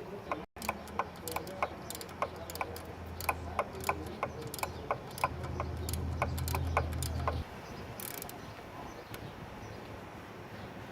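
Hand ratchet clicking steadily, about three clicks a second, as a 1/2-inch socket backs a bolt out of a Mercury Alpha One sterndrive. The clicking stops about seven seconds in.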